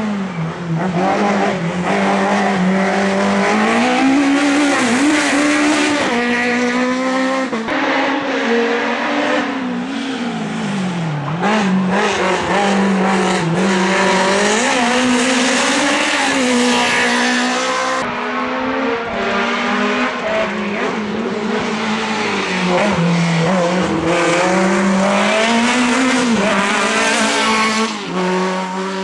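Competition cars' engines revving hard through a slalom of cones, one car after another. The engine note climbs and falls over and over with throttle lifts and gear changes.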